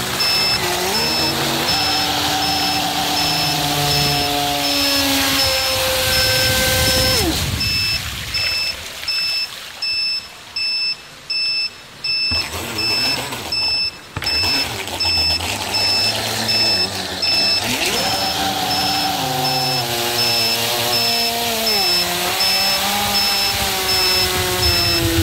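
Electric motor of an RC model yacht whining, its pitch rising and falling with the throttle. About eight seconds in the whine drops away and the sound cuts in and out about once a second. About ten seconds later the sliding whine returns.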